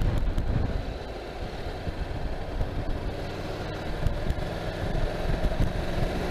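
Motorcycle engine running under way, with wind buffeting the microphone as a low, uneven rumble; the engine pitch rises slightly about two-thirds of the way through.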